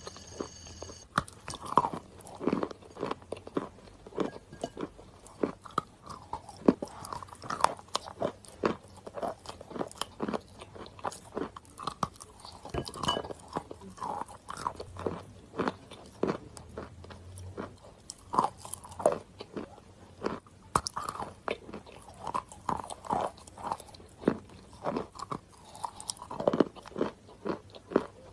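Wet chalk being bitten and chewed close to the microphone: a rapid, irregular series of sharp crunches.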